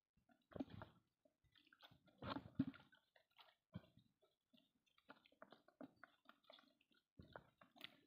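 Mostly quiet, with brief scattered sounds of a wet mesh fishing net being handled and water dripping and splashing. The loudest rustle-and-splash comes about two seconds in.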